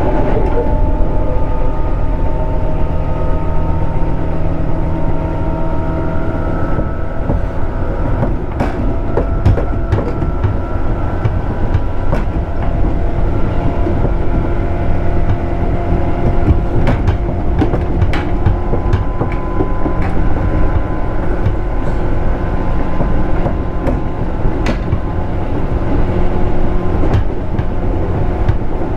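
JR 211 series electric train running along the Chuo Line, heard from on board: steady heavy rumble with scattered sharp clicks from the rails and a motor and gear whine that slides in pitch, then holds steady.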